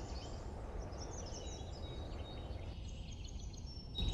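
Outdoor ambience: a steady low rumble with small birds chirping faintly and high, plus a thin whistled note near the end.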